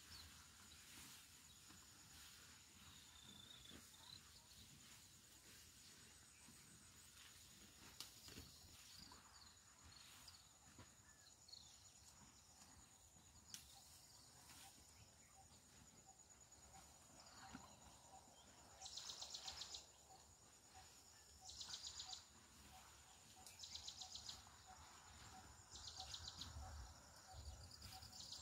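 Faint insect chorus: a steady high trill throughout, and from about two-thirds of the way in, a pulsed buzzing call repeated five times, about every two to three seconds. A few soft bird chirps sound in the first half.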